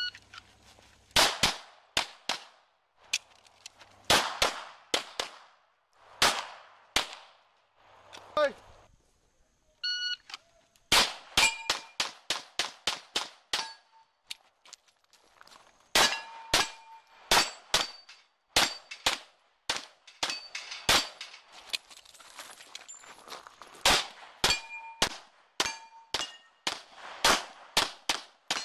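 A shot-timer beep, then strings of rapid handgun shots fired in quick pairs and runs, several followed by short metallic ringing, typical of hits on steel targets. A second timer beep about ten seconds in starts another string of shots.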